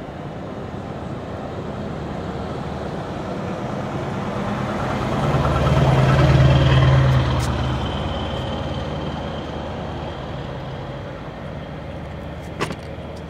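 A motor vehicle passes by: engine and road noise build to a peak about halfway through, then fade away. A single sharp click comes near the end.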